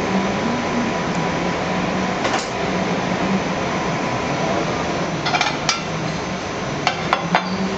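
Steady hum of a restaurant kitchen, with two short bursts of sharp clinks and clatter of plates and platters being handled, one past the middle and one near the end.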